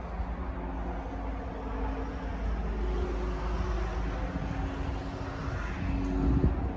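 A vehicle engine running steadily, a low rumble under a faint steady hum.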